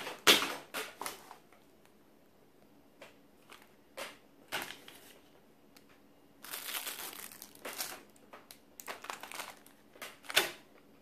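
Plastic packaging crinkling and rustling in short bursts as a poly mailer bag and small clear parts bags are handled, with the loudest rustles right at the start and near the end.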